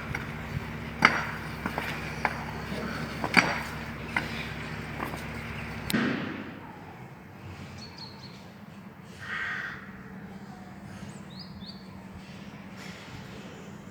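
A machine's engine running steadily with sharp knocks and scrapes over it, cutting off abruptly about six seconds in. After that the background is quieter, with a crow cawing and small birds chirping.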